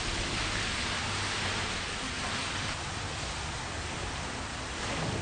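Steady hiss of room noise with a faint low hum underneath, with no distinct knocks or strokes.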